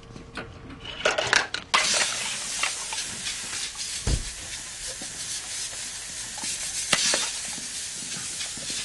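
A few clicks and knocks, then a steady hiss that starts abruptly about two seconds in and keeps going, with an occasional click.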